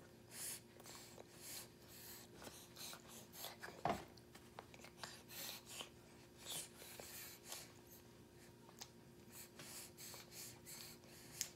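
Faint sounds of a baby chewing grapes in a high chair: short soft snuffly breaths and mouth noises coming every half second or so, with one sharp knock about four seconds in. A steady low hum sits underneath.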